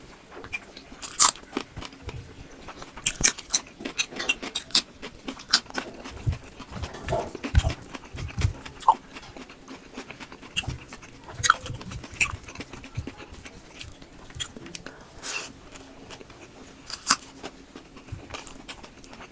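Close-miked eating sounds: irregular wet smacks, bites and crunches of someone chewing chicken and fish curry with rice.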